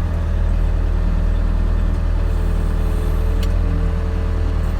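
Turbocharged Kubota diesel of a Bobcat S205 skid steer loader idling steadily, a deep even rumble.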